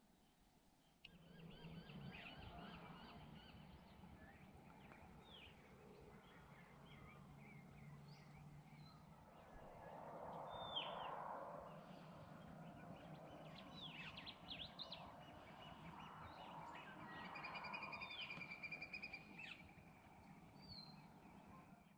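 Several birds calling faintly and on and off, short chirps and quick down-slurred whistles, over a soft low hum. It starts about a second in.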